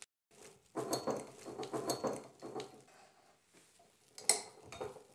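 A waiter's corkscrew being worked into the cork of a wine bottle: metal clicking and scraping against the glass neck as the screw turns in, then a sharp click a little after four seconds in as the lever is set on the rim.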